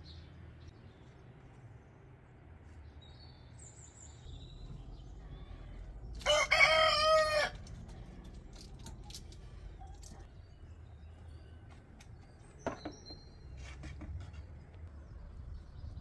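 A rooster crows once, a single crow of about a second and a half some six seconds in. A few faint high chirps sound before and after it.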